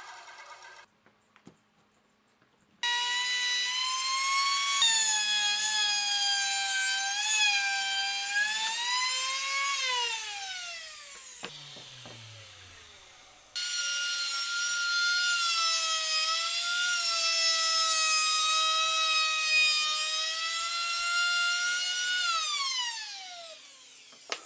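Circular saw run twice through wood. Each time it starts suddenly with a high whine whose pitch wavers through the cut, then winds down in a long falling whine after the trigger is let go.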